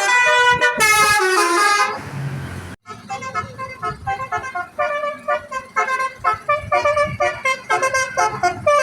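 Telolet basuri multi-tone musical bus horn playing a tune in stepped notes. About two seconds in there is a short hiss and the tune breaks off briefly, then it resumes as a quick run of short staccato notes.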